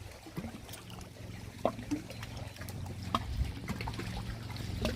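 Gentle water lapping and trickling at the lake's edge, with small splashes and clicks, over a low steady hum.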